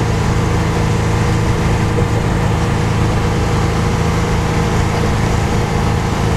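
Kenworth K100C Aerodyne cab-over truck's diesel engine running steadily at road speed, heard from inside the cab: a low drone with road and wind noise over it.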